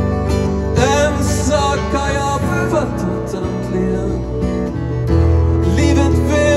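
Live acoustic band music: acoustic guitars strummed over a sustained low bass, with a high melody line coming in about a second in and again near the end.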